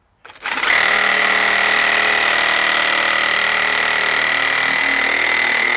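DeWalt 18 V cordless reciprocating saw triggered and run free at steady full speed, not cutting anything. Its motor and blade drive give a loud, even high whine.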